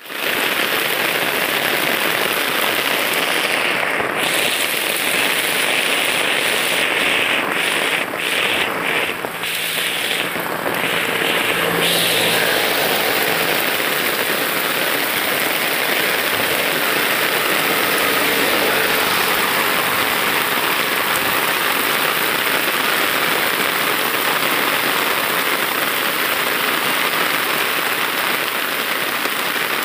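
Heavy rain pouring down onto a wet paved road and roadside trees, a loud, steady hiss.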